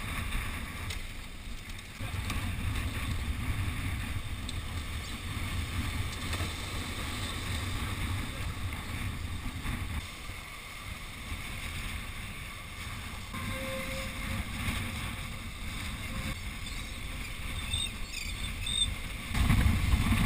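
Wind rumbling on the microphone over the wash of waves against jetty rocks, changing in strength at a few points.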